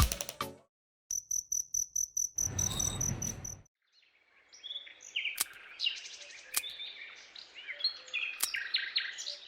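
A rapidly pulsing, cricket-like high chirp lasts for about two and a half seconds, then gives way to many small birds chirping and twittering, with a few sharp clicks among them.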